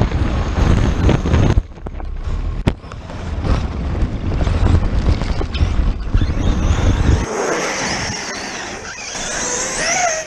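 Large 8S brushless-motor RC car running, its electric motor whine rising and falling as it speeds up and slows in the second half. Wind buffets the microphone in the first part, with a sharp click a little under 3 seconds in.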